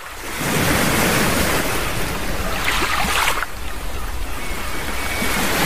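Ocean waves breaking: a steady rush of surf that swells and ebbs, strongest about three seconds in.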